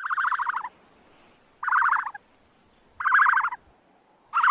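An animal's short, rapidly pulsed call, repeated four times about a second and a half apart.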